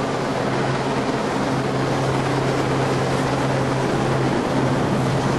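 Yellow RAF Sea King search-and-rescue helicopter flying low overhead: steady rotor and engine noise with a steady low hum, mixed with gusting wind rushing on the microphone.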